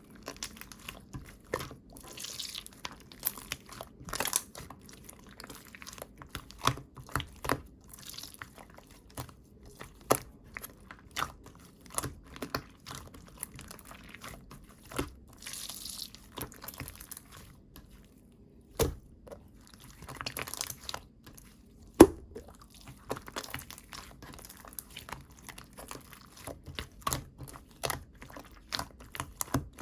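Chewy white water slime being squished and stretched by hand: irregular sticky clicks and small wet pops, with a couple of louder snaps and short crackly stretches.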